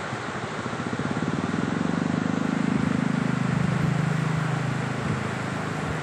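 Muddy river water pouring over a low weir, a steady roar of churning whitewater. A lower rumble swells from about a second in, is loudest around the middle and fades again before the end.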